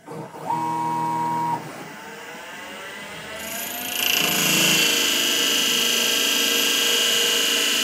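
Syil EX250 CNC lathe starting its program: the spindle motor starts with a brief steady whine, then comes a whirring that rises in pitch as the spindle and carriage move. From about four seconds in, the tool takes its first 40-thou roughing cut on the bar, a loud, steady cutting noise with a high whine.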